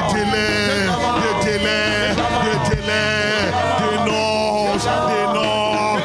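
Worship music: a man singing into a microphone over instrumental backing with steady held low notes.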